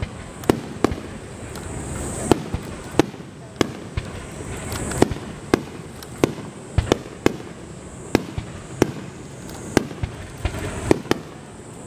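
Fireworks display: about twenty sharp bangs from bursting shells at irregular intervals, sometimes two or three in quick succession.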